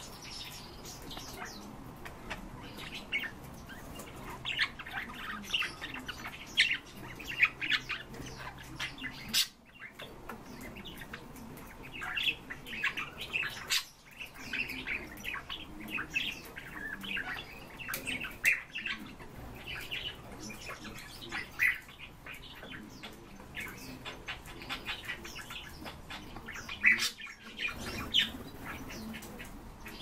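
Pet finches chirping and calling: a busy stream of short, high chirps with a few brief pauses.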